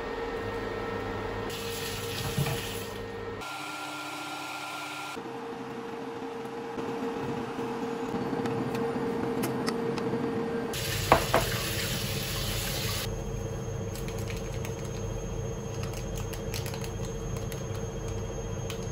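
Tortilla wraps frying in a pan on an induction cooker: a soft sizzle over a steady electric hum. A sharp knock comes a little past halfway, and light clicks follow toward the end.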